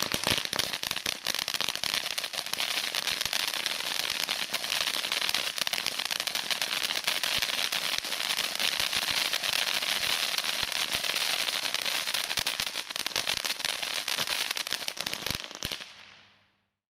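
'Pegasus' firework cake firing: a dense, unbroken crackle of many small pops every second. Near the end there are a couple of stronger reports, then the crackle dies away quickly as the cake burns out.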